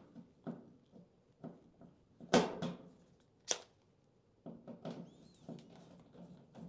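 Irregular metallic clicks and taps of a wrench working the small six-point nuts that hold a dryer's top panel, with two louder knocks in the middle and quicker small clicks near the end.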